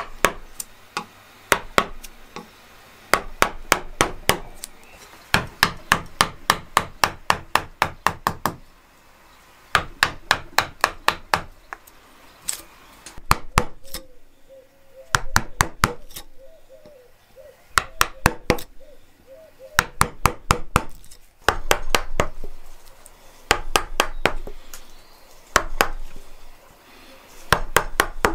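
Mallet striking a carving chisel into a wooden log: runs of quick, sharp taps, about three a second, broken by short pauses.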